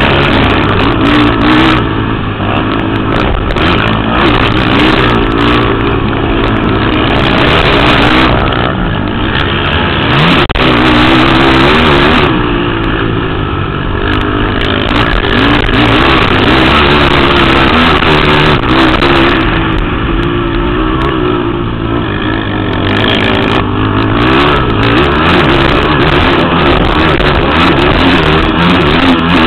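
Racing ATV (quad) engines revving hard, the pitch rising and falling continuously as the riders shift, brake and accelerate around the motocross track.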